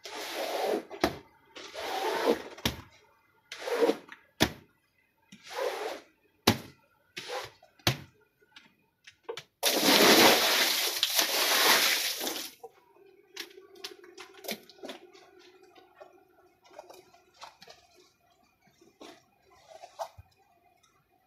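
A rubber squeegee is pushed in several strokes over plastic film on a foamy wet rug, each a scraping swish ending in a click. About ten seconds in comes the loudest sound: water poured over the rug, splashing for about three seconds. Faint crackles and clicks follow as the wet rug is handled and rolled up.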